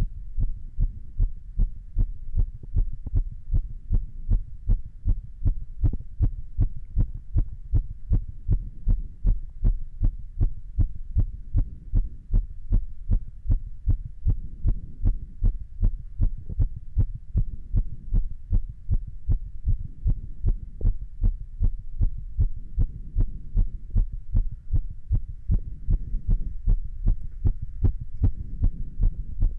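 A person's heartbeat recorded close at the chest: low, muffled thuds in a steady, even rhythm, with a low rumble between the beats.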